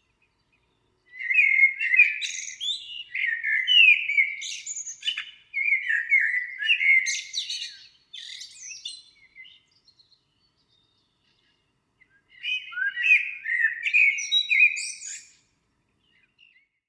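Songbird singing: long phrases of fast, high twittering and warbling notes, a pause of about two seconds, then another phrase about twelve seconds in.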